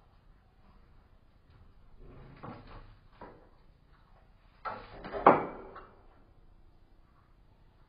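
A few soft knocks, then a sharp bang with a smaller thud just before it, about five seconds in.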